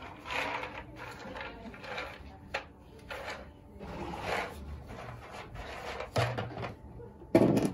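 A horse nosing and pushing a hard plastic treat ball through straw bedding: soft scuffs and rustles about once a second, with a sharp knock a little over two seconds in.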